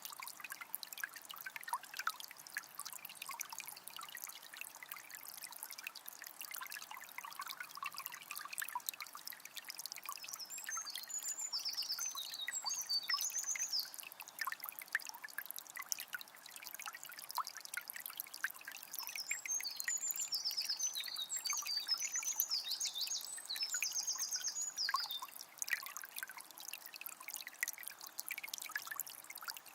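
A small spring trickling and splashing steadily. A bird sings in two bouts of quick chirps, one starting about ten seconds in and a longer one near the two-thirds mark.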